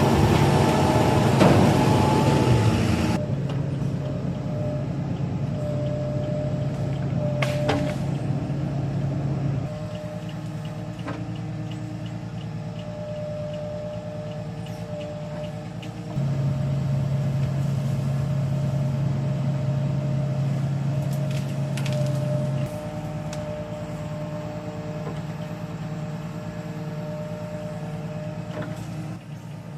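Heavy machinery's engine running steadily, its hum stepping louder and quieter several times as the load or throttle changes. There is a louder, rougher stretch over the first few seconds and a few sharp clicks.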